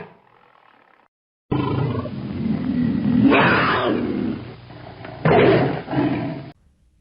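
Tiger roar sound effect: a long growling roar that starts abruptly about a second and a half in, swells twice, and cuts off sharply near the end.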